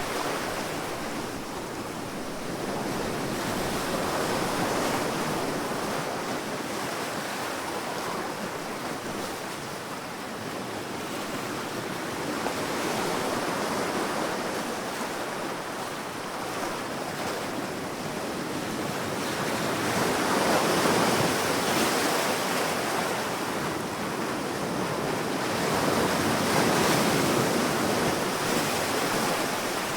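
Sea waves washing onto a beach, the surf noise swelling and ebbing every few seconds, with two stronger swells in the second half.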